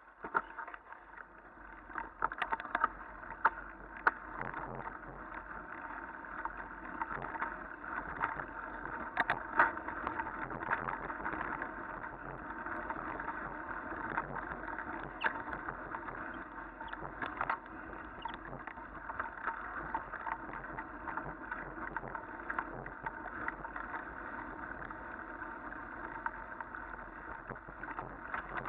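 Bicycle rolling along a wet lane at speed: a steady rush of tyre noise with frequent sharp rattles and knocks as the bike goes over bumps.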